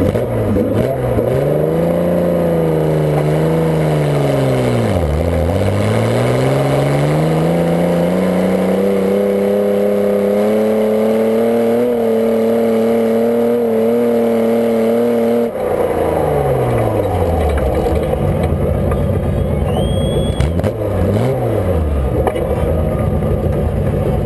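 Garden pulling tractor's engine running hard under load: its pitch dips about five seconds in, then climbs steadily for about ten seconds. It is cut back suddenly about two-thirds of the way through and winds down, with two short blips of throttle near the end.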